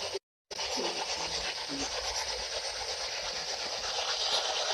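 Steady hissing background noise, broken by a brief drop to total silence just after the start.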